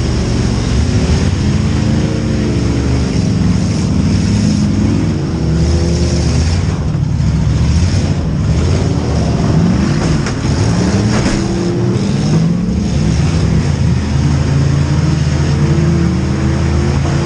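Several demolition derby cars' V8 engines running and revving together, their pitches rising and falling over one another. A few sharp knocks come in between about eight and eleven seconds in.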